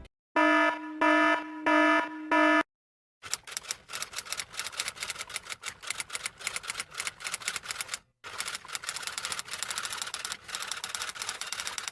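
Four short electronic beeps in a row, then rapid typewriter clacking in two long runs, with a brief break about eight seconds in.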